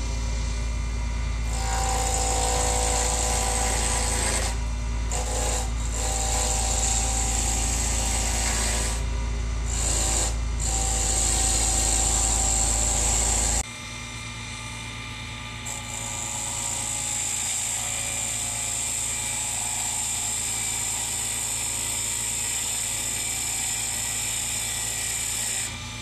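Small wood lathe running steadily while a bubinga pen blank on a mandrel is turned down with a turning tool: a steady motor hum under a high hiss from the tool cutting the wood, which stops briefly a few times. The sound drops abruptly about fourteen seconds in and carries on.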